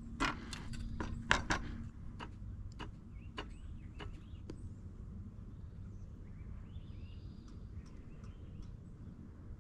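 About ten light, irregular clicks and taps in the first four and a half seconds, from survey gear being handled at the prism pole. Then a quiet outdoor background with a few faint high chirps.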